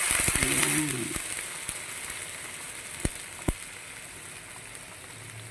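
A wok of chilies, celery and fish roe sizzling hard just after a little water is poured in, the sizzle fading away steadily as it settles. Two light clicks come a little past halfway.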